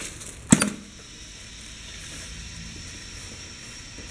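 Pneumatic piston filling machine firing one shot of paste: a single sharp clack from the air cylinder about half a second in, with a brief ring.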